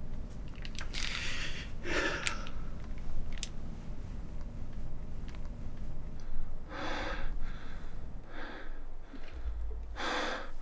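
A man breathing hard in sharp gasps: a few heavy breaths a couple of seconds apart, with no words.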